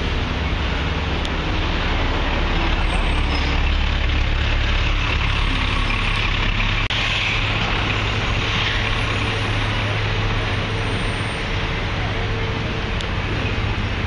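Street traffic dominated by the steady low rumble of a large diesel engine, a truck or bus running close by.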